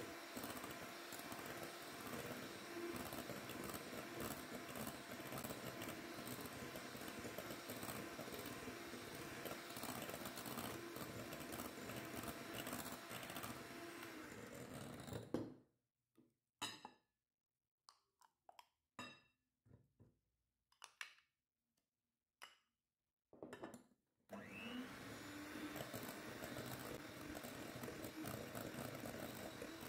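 Electric hand mixer running steadily, its beaters whirring through a creamy cheese batter in a glass bowl. About halfway through it stops for several seconds, leaving only a few light clicks and taps, then starts again with a brief rising whine as the motor spins up.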